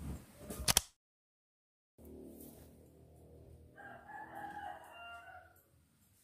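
A rooster crowing once, a wavering call of about two seconds starting near the middle, over a low steady hum. A few sharp clicks and knocks come in the first second, followed by a second of dead silence.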